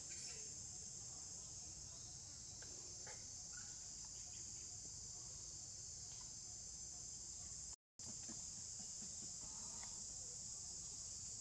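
Steady high-pitched drone of a chorus of insects, unbroken except for a moment's dropout about eight seconds in.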